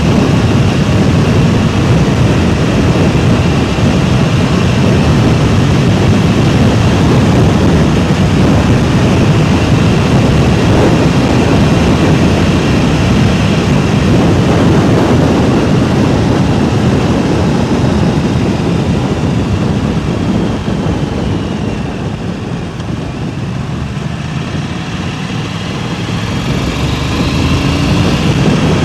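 Heavy wind rumble buffeting a DJI Mic Mini clip-on wireless microphone. It is strongest in the low end, eases for a few seconds a little past two-thirds of the way through, then builds again.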